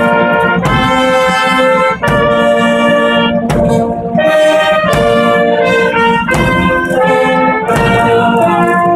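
Marching band of brass, saxophones and drums playing a slow tune in long held chords that change about once a second.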